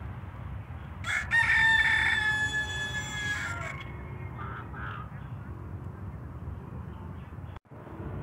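Helmeted guineafowl calling: one long call on a steady high pitch starting about a second in and lasting about two and a half seconds, then a few shorter, softer calls.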